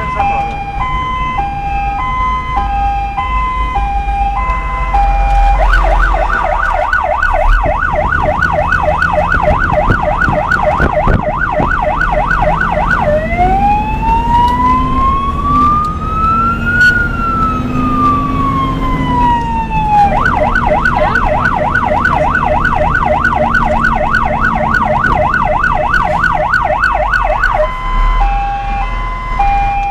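Emergency vehicle's electronic siren switching modes: a two-tone hi-lo for the first five seconds or so, then a fast yelp, then one long wail that rises and falls around the middle, then the yelp again, with the hi-lo returning near the end.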